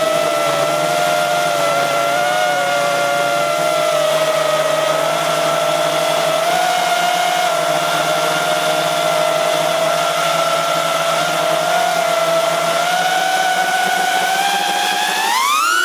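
DC5 FPV freestyle drone's motors and propellers whining at a fairly steady pitch during low, fast cruising, with small wobbles as the throttle shifts. Near the end the whine climbs sharply in pitch as the pilot punches the throttle.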